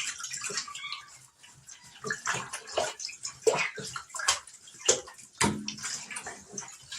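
Water splashing and sloshing in a bathtub in short, irregular splashes as a puppy is washed by hand.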